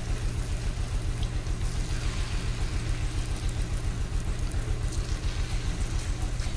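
Hot oil sizzling as batter fritters deep-fry in an iron kadhai, over a steady low throbbing hum.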